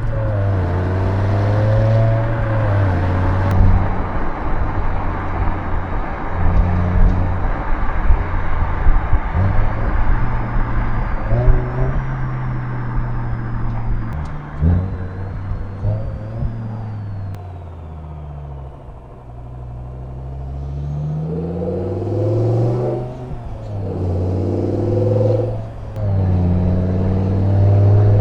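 BMW M6 E63's naturally aspirated 5.0-litre S85 V10 heard onboard under hard driving, revs rising and dropping with gear changes. About two-thirds through it eases to a quieter stretch as the revs fall, then pulls hard again toward the end.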